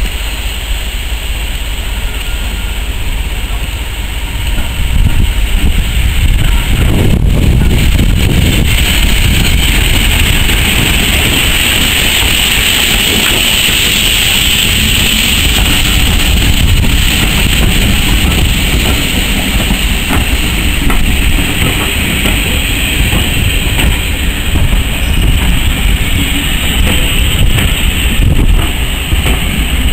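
Vintage railway carriages rolling past close by, a steady rumble with the wheels clicking over the rail joints.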